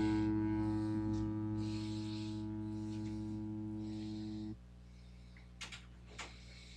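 Les Paul-style electric guitar played through an amplifier: a strummed chord rings and slowly fades, then is damped about four and a half seconds in. A steady amplifier hum remains, with two short clicks a second or so later.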